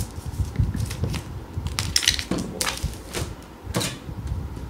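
A knife slitting the plastic shrink-wrap seal on a boxed laptop, the film crackling and tearing in several short, scratchy bursts.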